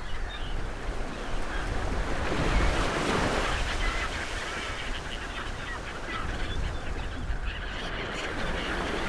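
Ocean surf washing ashore, swelling with a breaking wave about two to three seconds in, with short bird calls scattered over it.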